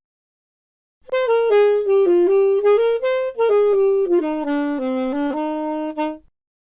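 A saxophone plays a short jazzy melody of separate notes. It starts about a second in and stops shortly before the end.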